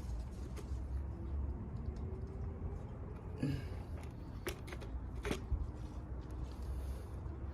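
Small handling sounds of hand work at a brick wall: faint scratching and a few sharp clicks, three of them standing out in the middle, over a steady low rumble.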